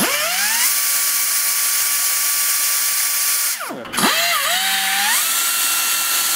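Snap-on pneumatic cutoff tool running free with a high whine over the hiss of exhaust air. This first run is the worn tool before lubrication. About three and a half seconds in it stops abruptly, then spins up again and settles on a higher-pitched whine: the same tool after a few drops of DiamondLube lubricant, spinning faster.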